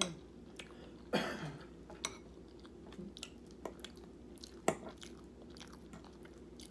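Close-up chewing and wet mouth sounds of someone eating biscuits and gravy, with a louder mouth sound about a second in and a few sharp clicks, the loudest about two-thirds of the way through.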